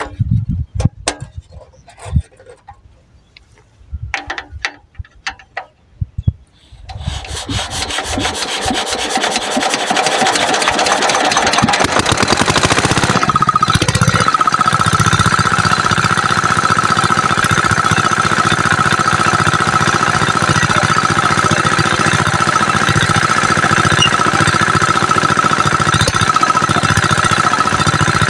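Small single-cylinder diesel engine of an irrigation water pump being started: scattered clanks and knocks from the hand crank, then the engine catches about seven seconds in and runs up to a steady, even running sound. From about fourteen seconds a steady high whine runs along with it.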